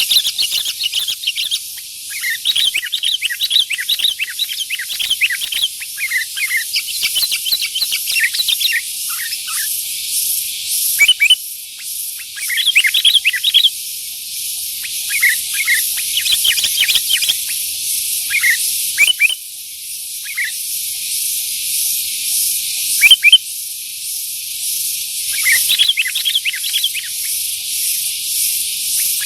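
Sooty-headed bulbul (kutilang) in full song: quick runs of short chirping notes, with a few sharply rising whistled notes, over a steady high hiss.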